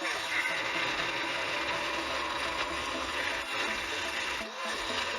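Steel stock being cut for a guillotine butcher die: a steady, harsh metal-cutting noise, with a short dip near the end.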